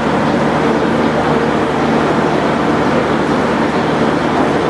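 JR Kyushu KiHa 66/67 diesel railcar idling at a standstill, its diesel engine giving a steady, even drone.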